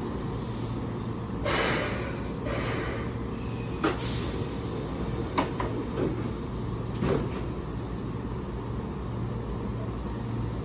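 Keihan 6000-series electric train standing at the platform, its equipment giving a steady low hum. A short hiss of air comes about a second and a half in, and a few sharp clicks and knocks follow over the next several seconds.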